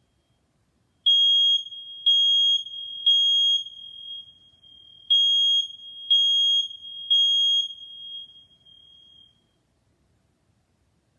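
Smoke alarm sounding its three-beep evacuation pattern: two groups of three loud, high beeps, then it stops. It has been set off with the test button.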